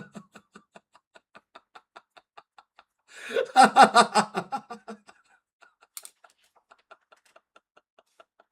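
A man laughing: a long run of quiet, short, evenly spaced laughs, about four a second, with a louder burst of laughter about three seconds in before it drops back to faint pulses.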